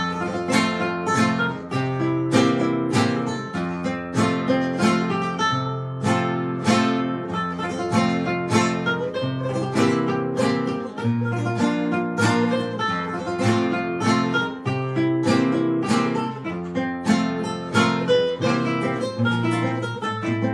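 Requinto guitar played: a quick melody of plucked single notes over sustained lower notes and chords.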